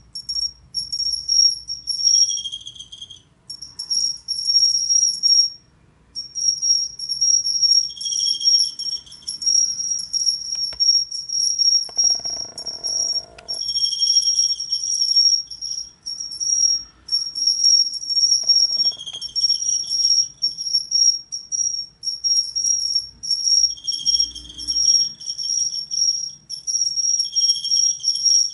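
Golden pipa cricket (Xenogryllus marmoratus) singing: a high, clear ringing trill in long runs broken by short pauses, with a lower tone joining in for about a second several times.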